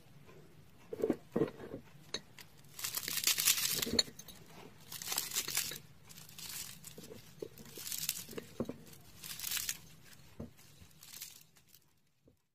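Crisp, flaky layered pastry crust of a baked somsa crackling and crunching as it is torn apart by hand, in about six bursts of crackle, the loudest about three seconds in. A couple of soft knocks come about a second in.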